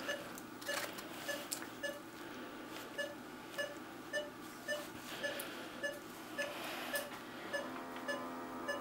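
Surgical patient monitor beeping in time with the anaesthetised dog's pulse: a short, mid-pitched beep repeating evenly, a little under two a second (roughly 110 beats a minute).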